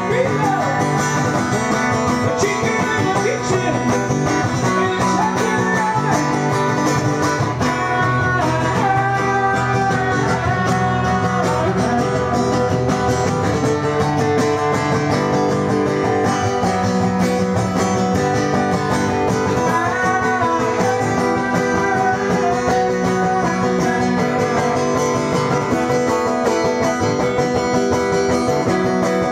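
Acoustic guitar played live, strummed and picked at a steady level throughout.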